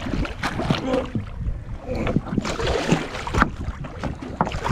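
Wind buffeting the microphone on a boat, with irregular knocks and clatter; the sharpest knock comes about three and a half seconds in.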